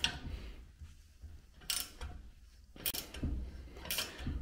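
Ratcheting spanner clicking in a few short bursts as it is worked back and forth on the nut of a manual rivet nut tool, drawing the rivnut tight so that it compresses and sets in the steel.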